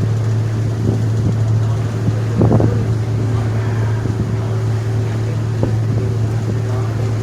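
Staten Island Ferry's engines running as a steady low drone, with a faint steady higher tone. There is a brief louder noise about two and a half seconds in.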